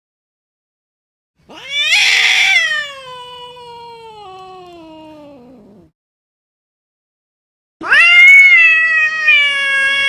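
Domestic cat meowing twice, two long drawn-out meows. The first comes about a second and a half in, loud at its start and then sliding slowly down in pitch over about four seconds. The second starts near the end and is loud and held.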